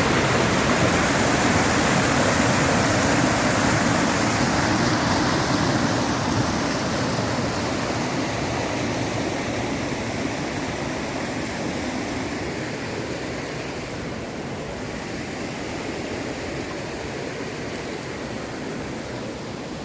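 Rushing stream water, a steady even wash of noise that grows gradually quieter after about five seconds.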